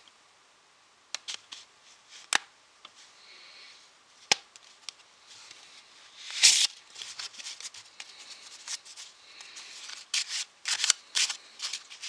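A deck of Memento Mori playing cards being handled: scattered sharp card snaps and clicks, a brief riffle about six and a half seconds in, and a quick run of snaps near the end.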